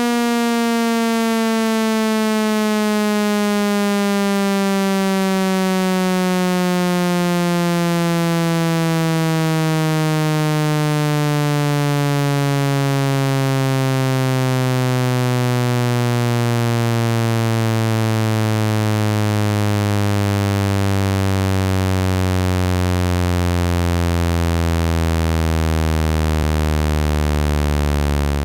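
Synthetic speaker water-eject sweep: a buzzy electronic tone, rich in overtones, sliding slowly and steadily down in pitch, meant to vibrate trapped water out of a phone speaker.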